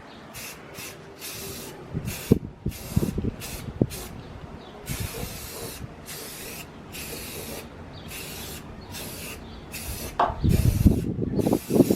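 Aerosol spray paint can sprayed in a series of short hissing bursts, with a couple of longer passes, about fifteen in all. A louder low rumble comes in near the end.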